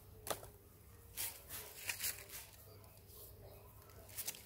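Faint, scattered crackles and snaps of dry leaf litter and twigs being stepped on or handled out of sight, over a low steady hum.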